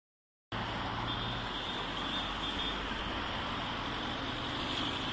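Steady road traffic noise with a low engine hum, starting suddenly about half a second in.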